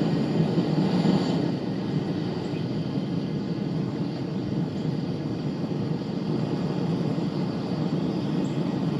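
A steady, low rushing noise that stays even throughout.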